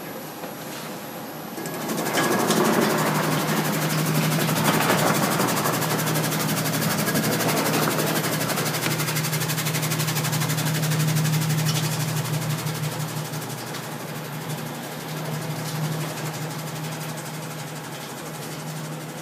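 Industrial green onion cutting machine running, with a steady hum; the noise grows loud about two seconds in while scallions go through the blade, and eases off after about twelve seconds.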